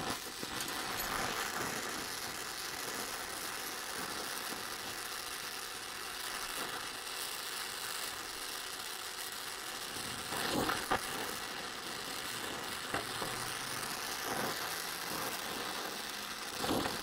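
Gas welding torch flame hissing steadily as it melts steel to fill a spot where the weld burned through, with a few light knocks of metal on metal.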